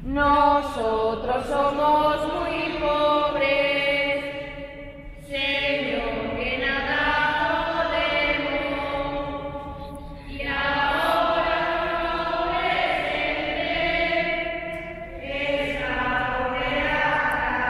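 Slow singing in four long phrases of about five seconds each, with held notes and short breaks between the phrases.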